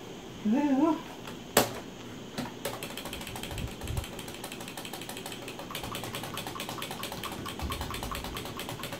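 Computer keyboard keys tapped rapidly and repeatedly, a fast run of clicks, after one sharp louder click about one and a half seconds in. The setup key is being hammered while the PC reboots, to get into the BIOS.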